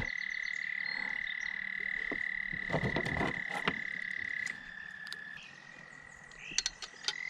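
A frog's continuous high-pitched trill, quieter from about halfway, with scattered clicks and knocks.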